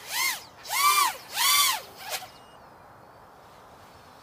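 Racing quadcopter's electric motors whining, rising and falling in pitch three times in quick succession as the throttle is blipped through flips, then much quieter.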